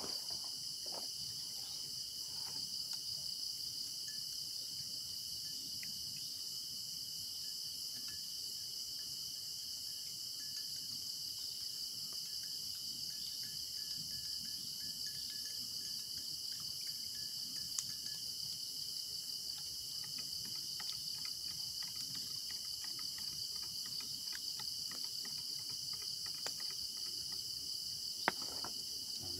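Chorus of crickets: a steady high-pitched chirring in several bands. Now and then a spoon clinks lightly against a glass, once more sharply near the end.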